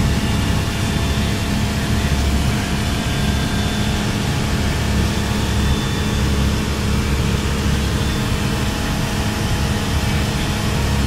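Single-engine propeller light airplane's engine and propeller droning steadily in cruise, heard from inside the cabin.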